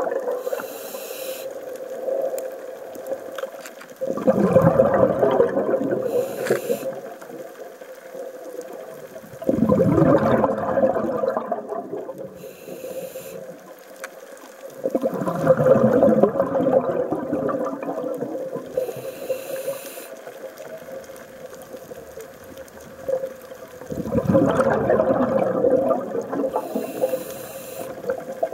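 Scuba diver breathing through a regulator: short hisses of inhalation, each followed by a long rushing burst of exhaled bubbles, about four breaths in all.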